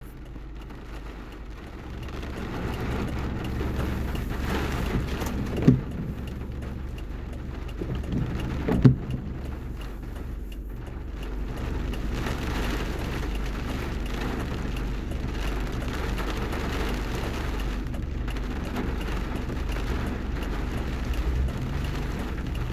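Car driving in the rain, heard from inside: steady low road and engine rumble under a hiss of rain. Two short, sharp, louder knocks come about six and nine seconds in.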